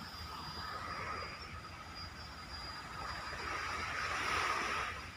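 Small, gentle waves washing onto a sandy beach, swelling about four seconds in, over a faint steady hum.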